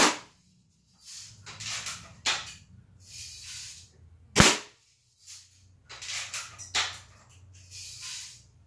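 Daisy Red Ryder adult-model lever-action BB rifle fired twice, two sharp cracks about four and a half seconds apart. Between and after the shots come short rasps and clicks as the lever is cocked.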